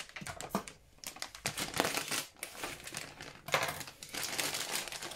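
Crinkly food packaging being handled, rustling and crackling in irregular bursts with a couple of short pauses.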